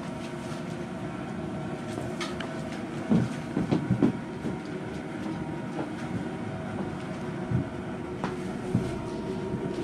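Steel screwdriver clinking and knocking against the cast-metal top cover of a MerCruiser Alpha One sterndrive as it is pried at, with a few sharper knocks about three to four seconds in and another near the end, over a steady machine hum.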